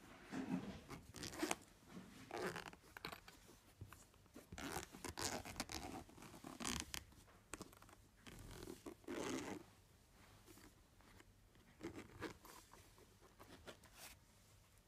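Zipper of a hard-shell travel case being drawn open around its edge in a series of short pulls, with light handling rustles of the case.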